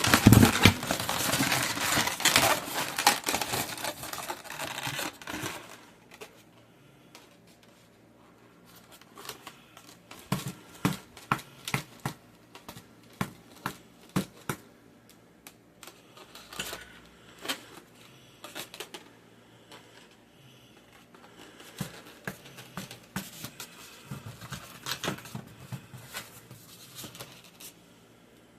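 Long latex modelling balloon being handled and rubbed: a dense crinkling rustle for the first few seconds, then scattered sharp clicks and squeaks, thickening again near the end.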